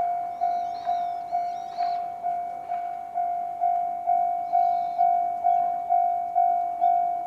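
Japanese railway level-crossing alarm ringing with the JR Central-type electronic bell tone, striking evenly about twice a second, each strike ringing and fading.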